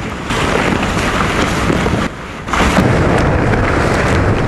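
Wind buffeting the microphone over water rushing and splashing against a small sailing trimaran's hulls as it drives through choppy waves. The noise drops briefly about two seconds in, then comes back louder.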